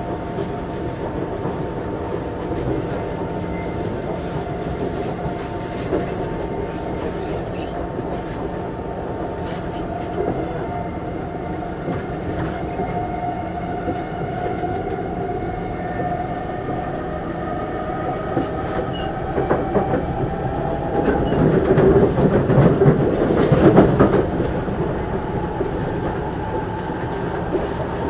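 Singapore MRT train heard from inside the carriage while running: a steady rumble of wheels on rail with a faint motor whine that slowly shifts in pitch. About three-quarters of the way through it grows louder and rougher for a few seconds, then settles back.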